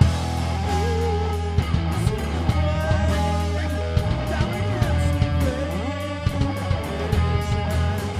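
Rock band playing live: electric guitar, bass guitar and drum kit. The full band comes in with a hit at the start, and the guitar plays gliding, bending lead notes over steady bass and cymbal-driven drums.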